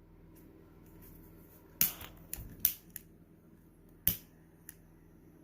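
Gas soldering iron being switched on and lit: a handful of sharp clicks, a quick cluster about two seconds in and another click about four seconds in.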